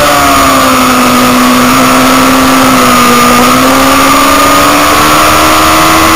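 Motorcycle engine heard from on board at speed, loud and steady. Its note sags slightly over the first three seconds, then slowly climbs again.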